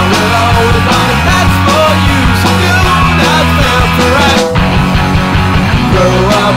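Loud punk/power-pop rock recording: electric guitar, bass guitar and drums playing together.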